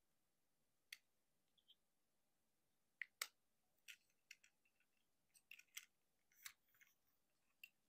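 Plastic parts of a Transformers Motormaster action figure clicking and snapping as it is handled and transformed, in scattered sharp clicks, the loudest two about three seconds in and a quick run of them near six seconds.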